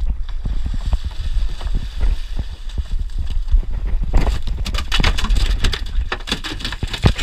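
A cobia of about 10 kg is hauled from the water and lands on a small boat's deck. From about four seconds in it thrashes, its body and tail slapping the rubber deck mat in rapid, irregular thumps, over a steady low rumble.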